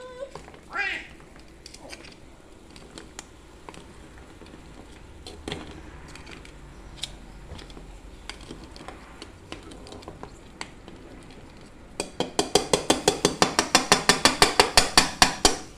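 Scattered light clinks of kitchenware, then about three quarters of the way in a loud, fast metallic rattle of about eight or nine taps a second that lasts some three seconds before stopping.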